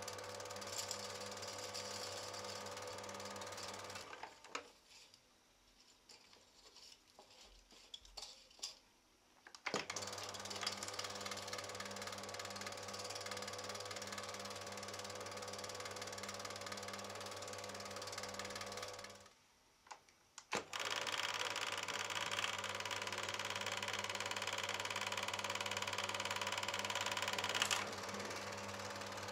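Neckermann exclusiv 2000 Ton Super 8 sound projector running: its motor and film-transport mechanism make a steady mechanical chatter over a low hum. It stops about four seconds in for roughly five seconds, starts again, stops briefly just before twenty seconds in, and runs on.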